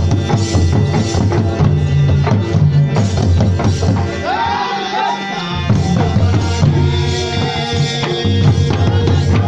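Folk dance music led by several double-headed barrel drums beaten in a fast, heavy rhythm, with a melody sung or played over them. The low drumming drops out for about a second around the middle, leaving the melody, then comes back in.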